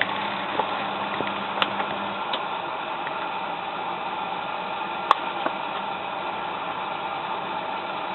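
Tricity Bendix AW440 washing machine running in the cool-down stage of its 95° boil wash: a steady hiss with a few light clicks, and a low hum that stops about two seconds in.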